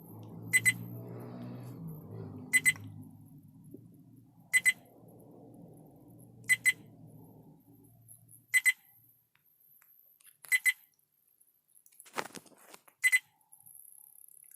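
Viofo A129 Duo dash camera beeping a short double beep about every two seconds, which the owner puts down to no SD card being inserted. A single knock sounds about twelve seconds in.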